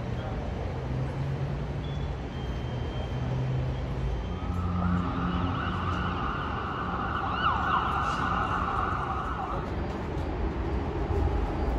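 An emergency vehicle siren sounds a steady high tone for about five seconds in the middle, over the continuous low rumble of vehicle engines running at a fire scene.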